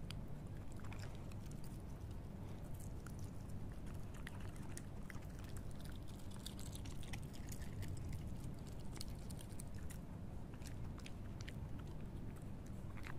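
A wild canid chewing and biting cooked penne pasta off the pavement: a run of irregular wet clicks and crunches from its jaws, over a steady low hum.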